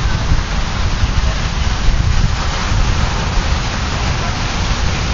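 Ocean surf breaking, a steady hiss, with gusts of wind rumbling on the microphone.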